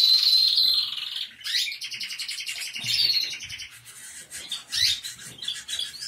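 Caged canaries and finches singing: fast rolling trills and chirps, continuous through the first second and again from about a second and a half to past three seconds, then breaking into scattered shorter calls.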